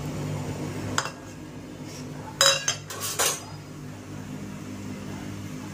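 Metal kitchen utensils clinking: a sharp tick about a second in, then two ringing clinks of steel about half a second apart, over a low steady hum.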